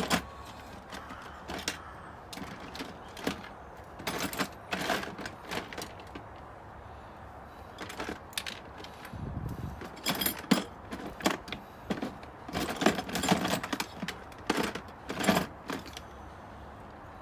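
Scattered clicks, taps and light metallic rattles of hand tools and screws being handled while a car's interior trim panel is refitted, coming in several short irregular bursts, the busiest in the second half, with a low dull bump about halfway through.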